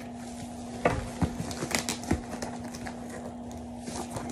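A cardboard shipping box being opened by hand: a few short knocks and scrapes of cardboard as the tape is pulled and the flaps are opened, most of them in the first two seconds, over a steady low hum.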